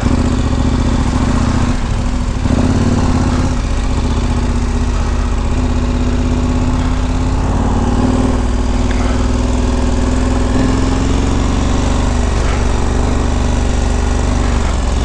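KTM 1290 Super Adventure R's V-twin engine running steadily as the motorcycle is ridden slowly along a dirt trail.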